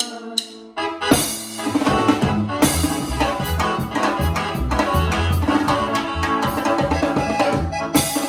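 Latin band music. After a short break, the full band comes in about a second in with drums and bass keeping a steady beat under the melody instruments.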